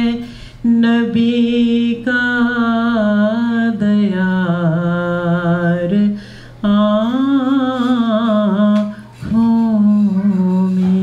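A solo voice singing a slow Urdu song in long, held notes with wavering, ornamented pitch and brief breaks between phrases, over a steady low hum.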